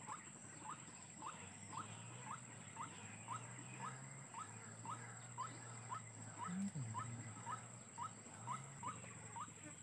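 White-breasted waterhen (ruak-ruak) calling: a short rising note repeated evenly, about twice a second. A steady high whine runs under it, with a faint low hum.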